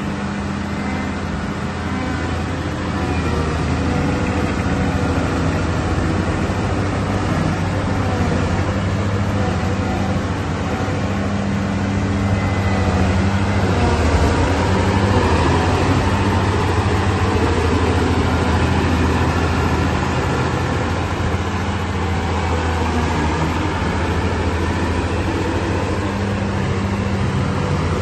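Diesel engine of a Morooka MST-2300 rubber-tracked dumper (Komatsu engine) running steadily while the machine drives, growing a little louder around the middle.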